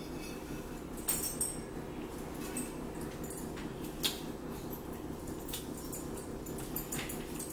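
A metal fork clinking and scraping on a plate, a few sharp clicks over a steady low background hum.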